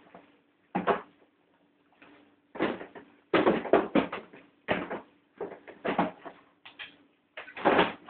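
Freezer shelf being handled and put back in: a run of knocks, clunks and scrapes as it is pushed and fitted into place, over a faint steady hum.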